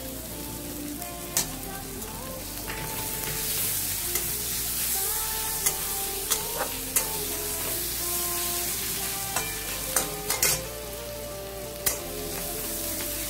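Sliced onions and whole spices frying in mustard oil in a metal kadai, sizzling steadily. A metal spatula stirs them, scraping and knocking sharply against the pan every second or two.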